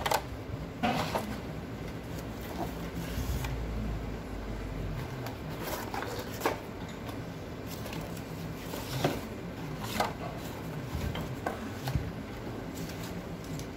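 Scattered clicks and knocks as a cardboard box and small drill parts are handled on a workbench.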